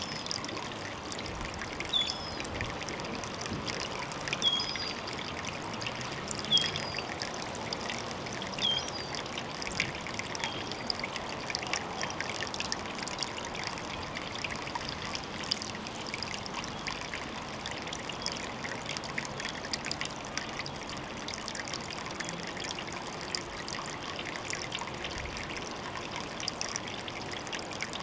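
Water trickling steadily at a pond. A short high chirp repeats about every two seconds through the first half.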